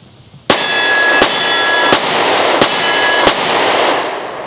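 Smith & Wesson M&P Shield .45 ACP pistol firing five quick shots of Buffalo Bore 255-grain +P hard-cast ammunition, a little under a second apart, starting about half a second in. Each shot leaves a ringing echo that trails off after the last one.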